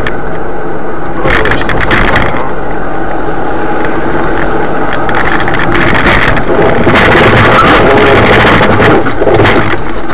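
Car engine and road noise, loud and dense, with several louder rushing surges.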